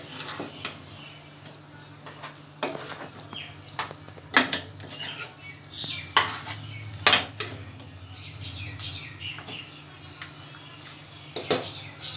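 Spoon stirring a thick chicken and pumpkin curry in a pot, scraping and knocking sharply against the pot several times, over a faint low steady hum.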